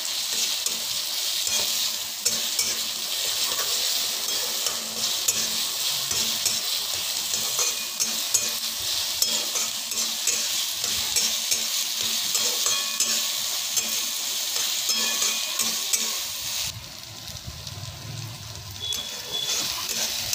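Onion and chilli-ginger-garlic paste sizzling in hot oil in a pan while a spatula stirs them, with frequent light clicks and scrapes of the spatula against the pan. Near the end the sizzle falls away for about two seconds, then comes back.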